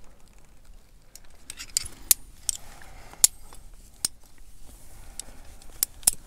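Metal carabiners clinking and clicking as they are handled and clipped onto a fixed rope: several sharp, separate metallic clinks with a brief high ring, scattered over a few seconds.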